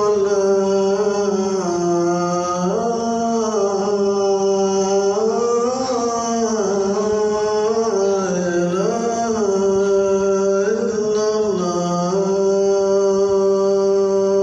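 Call to prayer (adhan) chanted by a muezzin: one man's voice in long, ornamented phrases that wind up and down in pitch, settling into a long held note near the end.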